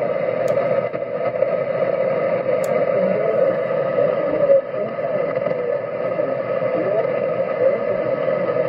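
Shortwave receiver audio from a Kenwood TS-950 HF transceiver tuned to 5.450 MHz: steady, narrow-band static and hiss with a weak voice signal from an oceanic weather broadcast buried in it.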